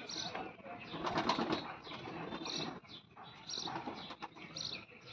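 Pigeon wings flapping and rustling, loudest about a second in, with a few short high bird chirps here and there.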